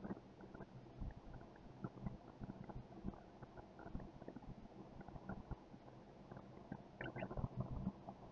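Faint background noise: a low steady hum with irregular soft thumps and small ticks, with a busier cluster of them about seven seconds in.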